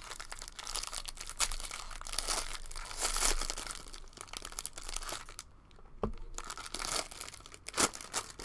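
Foil wrapper of a Bowman Draft trading-card pack being torn open and peeled back by hand: dense crinkling and tearing of the foil, with a short lull a little past halfway and a few sharp snaps near the end.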